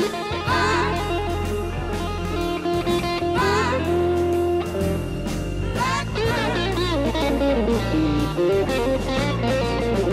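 Soundtrack music: an electric guitar playing a bluesy lead with bent, wavering notes over sustained bass.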